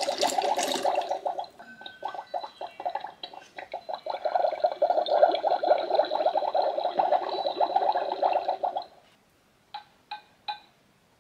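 Magic Mixies toy cauldron bubbling for about nine seconds, then three quick taps from it. The taps are the cauldron's signal that this step of the spell is done.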